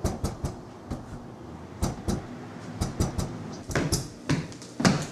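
A series of about fifteen sharp knocks and clicks at irregular intervals, the loudest near the end.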